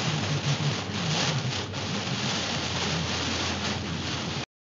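Heavy rain beating on a moving car's windshield, a steady rushing hiss with a low hum beneath, heard from inside the car. It cuts off suddenly about four and a half seconds in.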